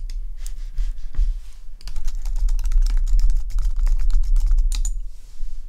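Typing on a computer keyboard: a couple of single clicks, then a fast run of keystrokes from about two seconds in that stops shortly before the end, over a steady low hum.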